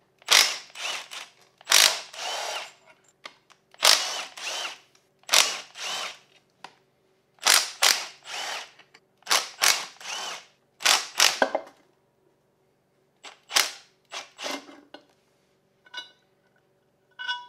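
A power tool run in short bursts, about eighteen of them, often in twos and threes, undoing the bolts of the rear cover on a BMW E90 differential. Near the end come a few light metallic clinks with a brief ring.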